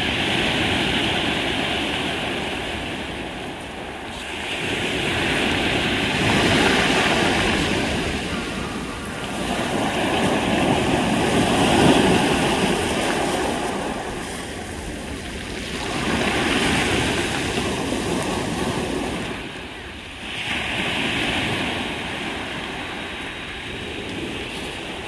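Sea waves breaking and washing up a pebble beach, the surf swelling and fading about every five seconds.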